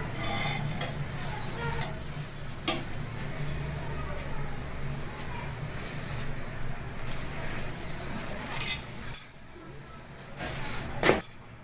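Oiled dal-stuffed puri sizzling on a hot tawa, with a flat metal spatula scraping and tapping against the pan a few times. The sizzle drops off about nine seconds in.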